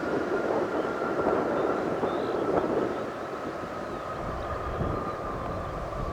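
Boeing 737-800 jet engines (CFM56-7B) running over a low rumble, their steady whine sliding slowly lower in pitch; the sound drops a little in level about three seconds in.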